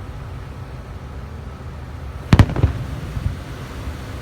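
A firework bursting: one loud sharp bang a little over two seconds in, a second crack right after it, then smaller echoing pops fading away.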